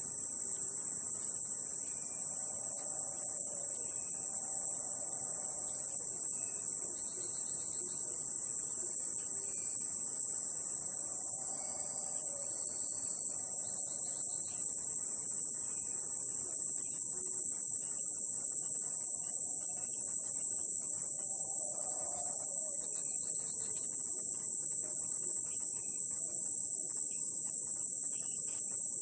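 Rainforest ambience: a steady, high-pitched drone of crickets and other insects, with faint scattered calls of birds or other animals underneath.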